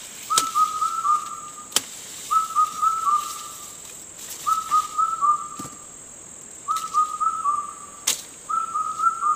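About three sharp chops of a machete blade cutting maize stalks. Behind them a short high whistled phrase of a few notes repeats about every two seconds over a steady high hiss.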